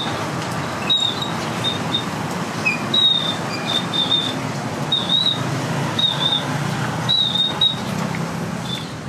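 Steady outdoor background noise with a short, high chirp recurring about once a second.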